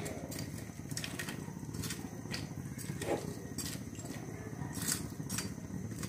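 Flat metal spatula stirring boiling bitter gourd pieces in a pan, with a few light clicks and scrapes against the pan over a steady low rumble.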